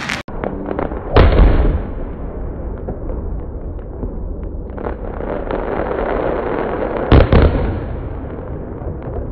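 Aerial firework shells bursting: two loud, deep booms, about a second in and again about seven seconds in, with a continuous rumble of crackling and smaller pops between them.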